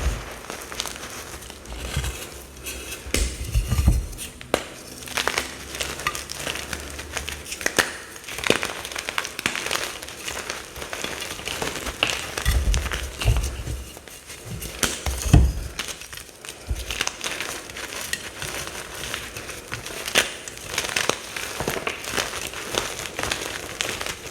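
Pressed mica powder bombs being crushed, giving a run of irregular dry crunching and crackling, with a few soft low thuds now and then.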